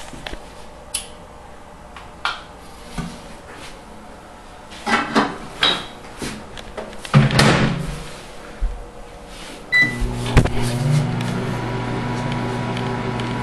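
Clicks, knocks and a louder scrape of handling around a microwave oven, then a short keypad beep about ten seconds in as the microwave starts, followed by its steady electrical hum with the fan running.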